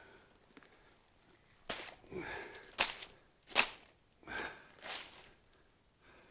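Crunching and rustling of dry leaf litter and bramble undergrowth being moved through, about six short bursts starting about a second and a half in and dying away near the end.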